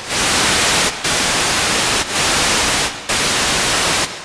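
Synthesized white noise from a Haken Continuum's EaganMatrix patch, played through its all-pass filter, so all frequencies pass and it sounds like plain full-range hiss. It drops out briefly about once a second.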